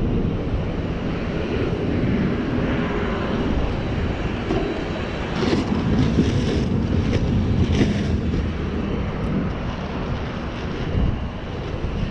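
Wind buffeting the microphone. In the middle come a few short rustles as paper towels are pulled from a dispenser.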